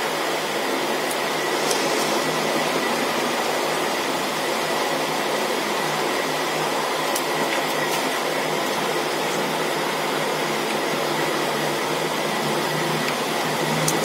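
Steady fan-like whooshing noise with a thin, steady high whine and a low hum underneath, broken by a few faint clicks of small plastic phone parts being handled.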